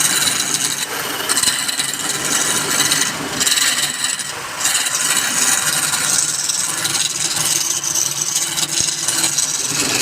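Wood being worked on a turning lathe: a tool scraping against the spinning workpiece, a steady hiss that rises and falls with brief lulls about three and four and a half seconds in.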